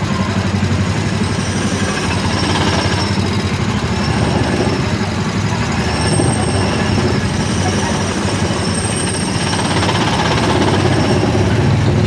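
Small single-cylinder Honda gasoline engine of an Autopia ride car idling with a rapid, even pulsing, heard close up from the car's own body.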